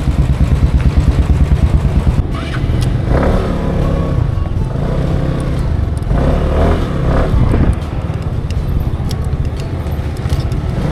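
Engines running, with a fast, even throbbing for the first two seconds that then drops lower and turns into a mixed engine rumble with scattered clatter.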